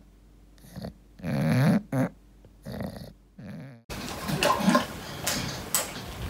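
English bulldog making short, noisy breathing sounds, about five separate bursts in three seconds. About four seconds in, these give way to a quieter, steadier room background.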